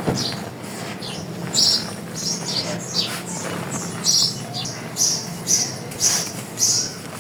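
Dry chalk being crumbled, crunching in short sharp bursts that come about twice a second in the second half.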